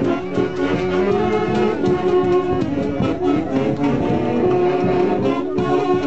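A live Andean festival orchestra playing a dance tune, wind instruments carrying the melody over a steady beat.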